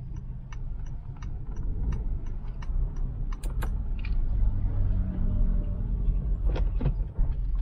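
Honda City's 1.5-litre four-cylinder petrol engine running as the car pulls away, heard from inside the cabin as a low rumble that builds. Over it, the indicator relay ticks about three times a second.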